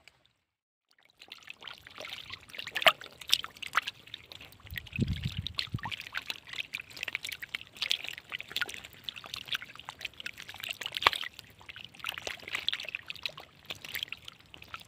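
Water pouring and splashing in many small, crackling splashes, starting about a second in, with one low thump about five seconds in.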